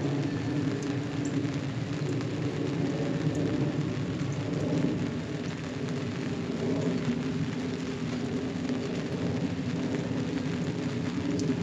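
Steady rain falling, with scattered drop ticks over a low, continuous rumble.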